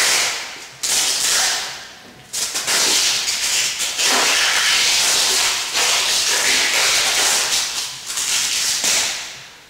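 Tape being pulled off a roll in several loud ripping strips, each starting suddenly, the last one long, while a man's legs are bound to a chair.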